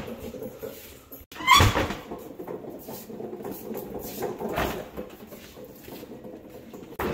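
A hand truck loaded with wrapped furniture rolling over a concrete floor, with a loud knock and a short rising squeak about a second and a half in, then smaller knocks and rattles.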